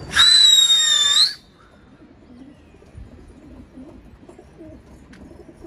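A loud, high whistle lasting about a second, right at the start. Then faint pigeon cooing.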